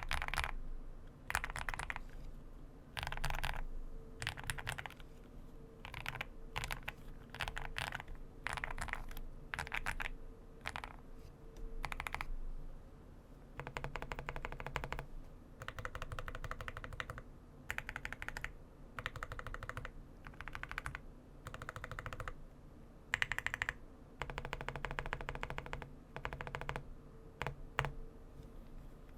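Typing on an Owlab Spring custom mechanical keyboard fitted with Everglide BeesWax linear switches and PBT double-shot keycaps: quick runs of keystrokes in bursts of a second or two, broken by short pauses.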